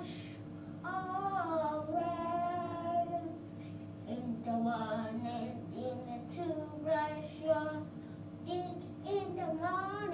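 A child's voice singing a song, with long held, wavering notes broken by short pauses.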